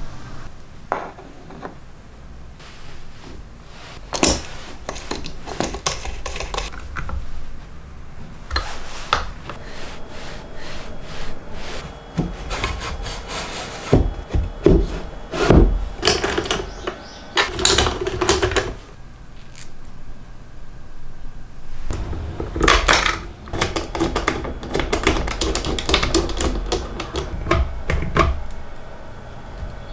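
Wooden blocks and a plywood board being handled and moved on a plywood jig and workbench: irregular taps, knocks, clicks and scraping, with no tool motor running.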